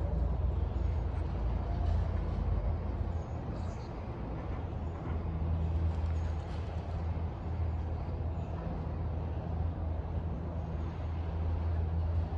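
Disney Skyliner gondola system running: a steady low mechanical hum and rumble that holds on evenly.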